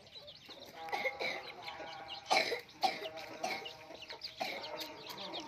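Chickens clucking with short, repeated calls, and two louder, harsher calls about two and a half seconds in.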